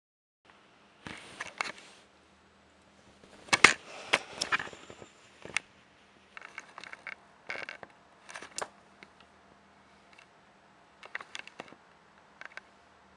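A kitten scuffling and pouncing on a bed: irregular bursts of scratchy rustling and sharp clicks from paws and claws on the bedding, busiest about three to four seconds in.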